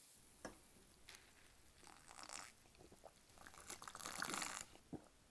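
Sipping fizzy soda over ice from a plastic cup held close to the microphone: a few light clicks, then a long crackly sip about three and a half seconds in.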